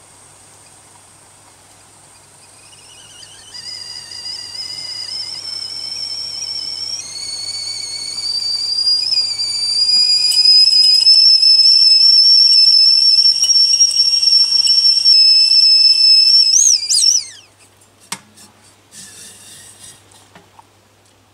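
Whistling kettle coming to the boil: a high whistle starts faintly, climbs and grows louder over several seconds, then holds loud and steady. Near the end it wavers and cuts off suddenly as the kettle is taken off the heat, followed by a few light knocks.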